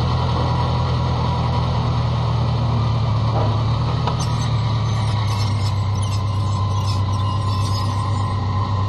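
Motorcycle engine running steadily as the bike rolls slowly at low revs, a constant low drone. From about four seconds in, light clicks and rattles sound over it.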